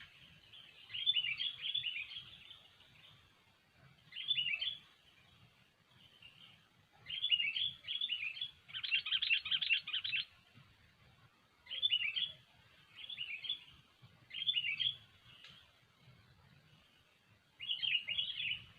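Sooty-headed bulbul (kutilang) singing: short phrases of quick, bubbly chirps repeated every second or two with pauses between, and one longer, denser phrase a little before the middle.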